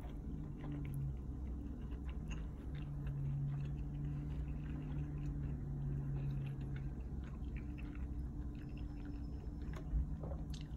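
A person chewing pizza: soft, wet mouth clicks, over a steady low hum, with one sharper tap near the end.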